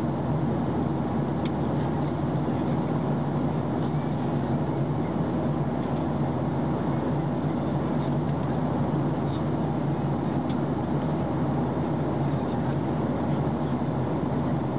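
Steady drone inside a jet airliner's cabin in cruise flight: the jet engines and the airflow over the fuselage, unchanging throughout.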